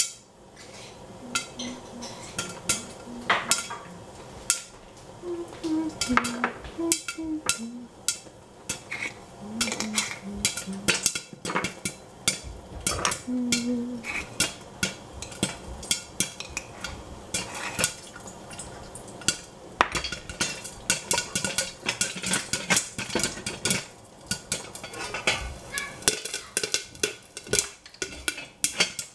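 Popcorn kernels popping in hot oil inside a covered metal saucepan, a scatter of sharp pops that come sparsely at first and grow much thicker about halfway through.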